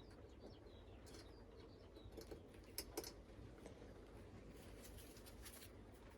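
Near silence with a few faint clicks and taps of a tiny metal screw and small lamp parts being handled, the clearest two close together about three seconds in.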